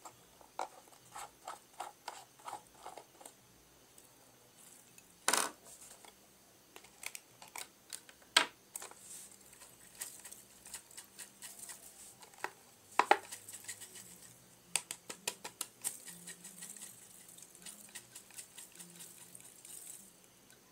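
Scattered light clicks, taps and clinks of small hard objects being handled, with a few louder knocks about five, eight and thirteen seconds in.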